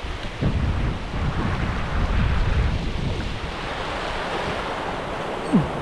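Wind buffeting the microphone in uneven low gusts over a steady hiss of wind and sea, with a brief falling tone near the end.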